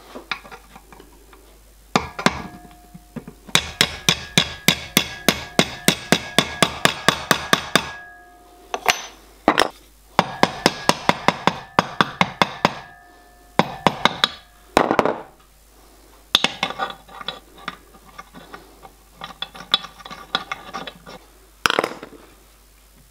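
Small hammer tapping thin metal strips down around a metal former held in a bench vice, bending them to shape: quick runs of light metallic taps, about five a second, each with a brief ringing note, broken by a few louder single knocks.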